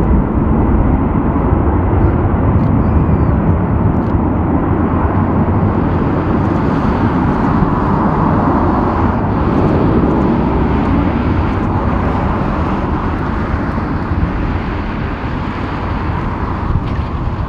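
Boeing 747-400 freighter's four turbofan engines at high thrust during its takeoff roll, a loud steady rumble.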